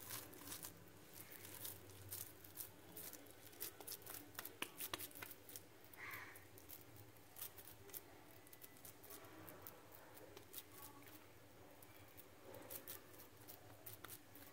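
Near silence with faint, scattered soft clicks and squishes of wet hands pressing and shaping minced-meat kabab mixture into a patty.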